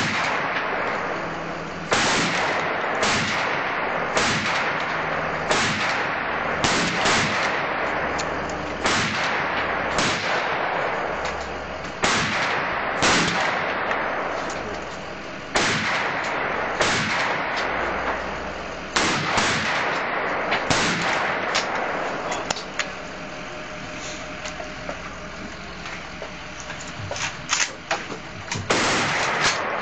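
Rifle gunfire: semi-automatic shots from an AR-15-style carbine and neighbouring shooters, about one every second or so, each ringing on under the wooden roof of the firing line. The shots are fainter and more scattered toward the end.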